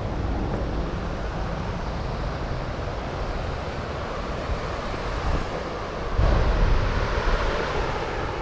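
Steady rushing noise of wind on the microphone, with a louder low rumble swelling for about a second and a half near the end.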